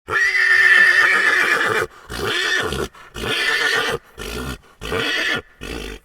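Horse neighing: one long, high call of about two seconds, then five shorter, quieter pulses.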